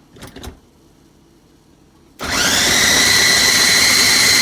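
A Qinkada 400 W electric food processor in its stainless steel bowl, switched on at speed 1 to chop an apple. After a couple of light clicks, the motor starts suddenly about two seconds in and runs loud and steady with a high whine.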